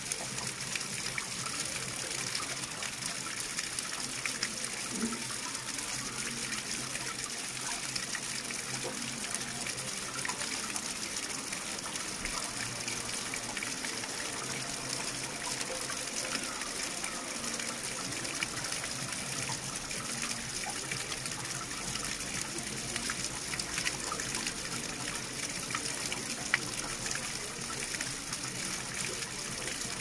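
Water running continuously, a steady even rush with small splashes scattered through it.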